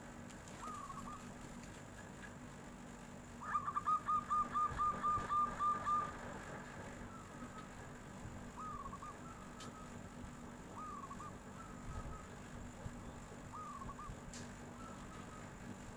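Zebra dove (perkutut) cooing. A couple of short coos come first, then about three and a half seconds in a fast run of about a dozen rapid, evenly spaced notes lasting some two and a half seconds. Scattered single coos follow.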